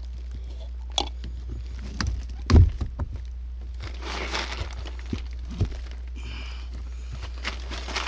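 Hands working on PVC water pipe and its ball-valve fittings: scattered knocks, taps and rustles, the loudest a thud about two and a half seconds in, over a steady low hum.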